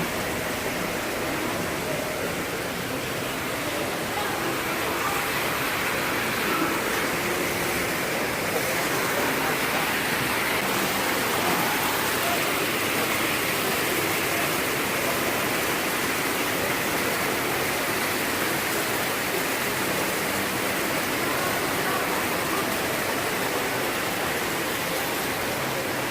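Steady rush of running water, even and unbroken, with a faint murmur of voices underneath.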